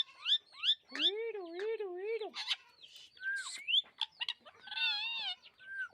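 Rose-ringed parakeet calling: quick rising chirps, then a long wavering warble and a mix of harsh squawks and whistled notes.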